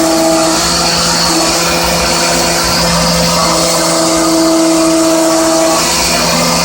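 Hermle C20U CNC machining centre trochoidal milling with a 16 mm Nachreiner HPC end mill at 4800 rpm: a steady cutting tone and hum over a constant hiss. A higher tone fades out and returns every couple of seconds as the tool's engagement along its trochoidal path changes.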